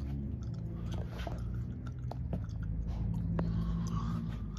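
A steady low hum with scattered small clicks and soft rustles, a few sharper clicks among them.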